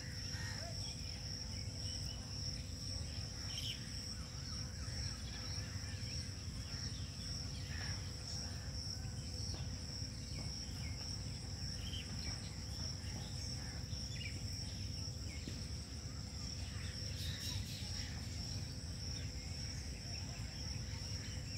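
Insects singing in one steady, unbroken high-pitched drone over a low background rumble.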